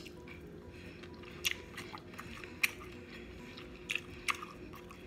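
Close-miked chewing of a slice of sausage, with wet mouth clicks and smacks every second or so.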